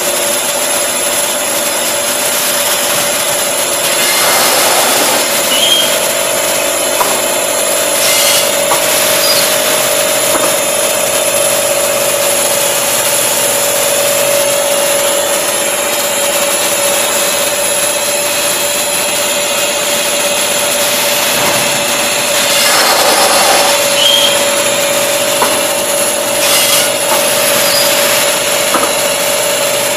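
Paper pulp egg tray moulding machine line running: a loud, steady mechanical din with a constant mid-pitched hum and a high whine, broken by a few brief louder whooshing surges.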